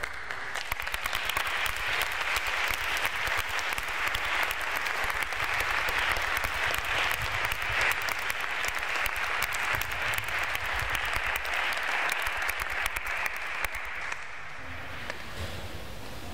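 Audience applauding: dense, steady clapping that thins out and stops near the end.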